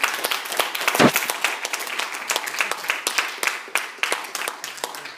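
Audience applauding, many hands clapping densely and unevenly, with one brief louder thump about a second in.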